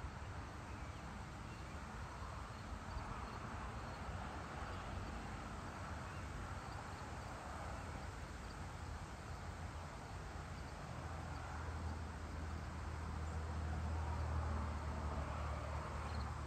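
Evening insects, crickets among them, chirping steadily in a late-summer farm field. A low rumble swells in the last third and then eases.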